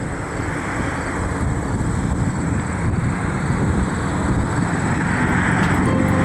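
Steady outdoor rushing and low rumbling noise that grows gradually louder, with no single clear event standing out.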